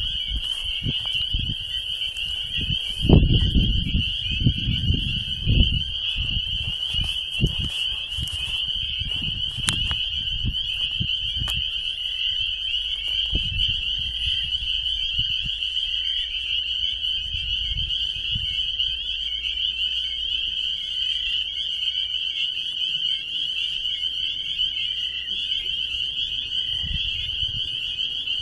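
Loud, steady chorus of high-pitched pulsing calls from many small creatures in a pool of water. A few low thumps on the microphone come between about three and six seconds in.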